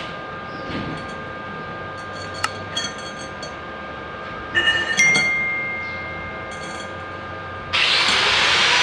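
Stainless steel tube clinking against a tiled floor as it is turned and handled, with a few light clinks and one about five seconds in that rings on for a couple of seconds. Near the end a loud, steady rushing noise starts abruptly.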